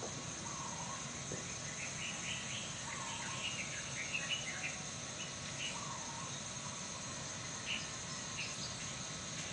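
Outdoor morning ambience: a steady high insect trill, with small birds chirping in short scattered bursts, thickest through the first half. A fainter, lower call recurs every couple of seconds.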